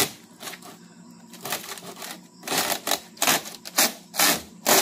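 A string of irregular sharp knocks and clatters, sparse at first and coming thicker in the second half.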